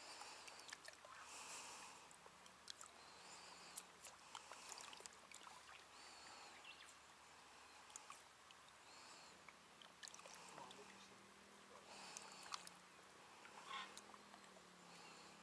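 Near silence: faint lapping of lake water with scattered small ticks and a few faint high chirps, and a faint low steady hum from about halfway through.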